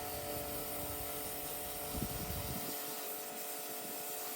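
Steady machine hum with several held tones over a hiss. A low rumble underneath fades out a little over halfway through.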